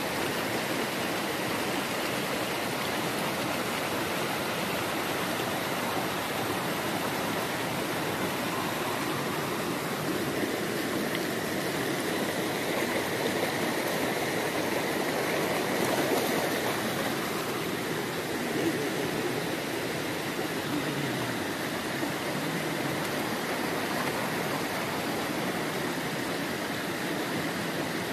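Steady rushing of a flowing stream, with a brief swell in loudness about midway.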